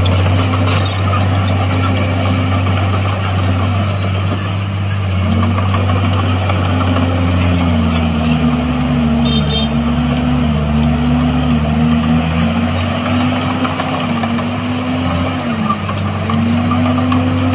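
Diesel engine of a heavy earthmoving machine running steadily. Several times in the middle its pitch dips and comes back up.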